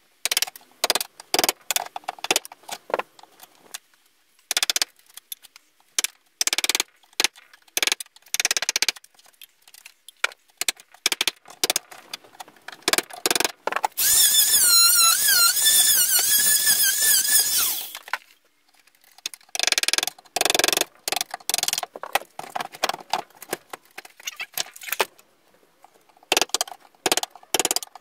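A wooden mallet strikes a wood chisel in runs of sharp knocks, chopping wood out of an old workbench. About 14 seconds in, an Ozito oscillating multi-tool with a wood blade runs for about four seconds with a loud buzz, then the mallet-and-chisel knocking starts again.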